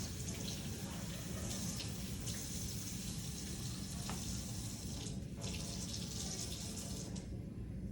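Tap water running into a sink as hands are washed under it. The flow cuts off near the end.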